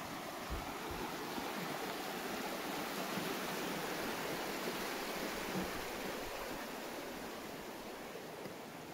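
River rapids rushing beneath a wooden footbridge, a steady wash of water that grows fainter near the end. A few soft thumps, such as footfalls on the planks, sound over it.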